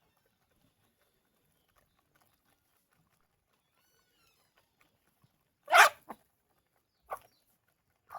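Mostly quiet, then one loud, short animal call just before six seconds in, followed by three fainter short calls over the next two seconds.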